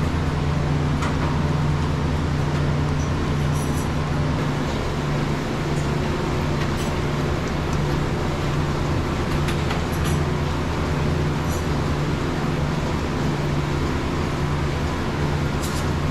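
Dairy milking equipment running: a steady low mechanical hum from the pipeline milking system, with a few light clicks and clanks scattered through it.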